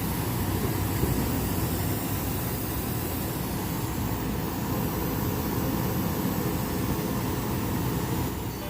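Metal lathe running steadily, a continuous mechanical drone with hiss.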